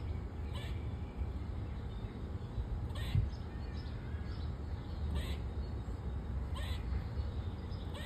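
Gray squirrel giving short, sharp barking calls, about four of them spaced a second or two apart, over a steady low rumble.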